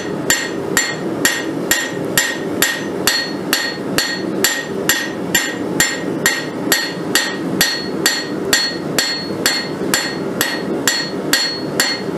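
Blacksmith's hammer striking red-hot mild steel flat bar on an anvil in a steady rhythm, about two blows a second, each with a short metallic ring. The rounding end of the hammer is spreading out the petals of a rolled-rose blank.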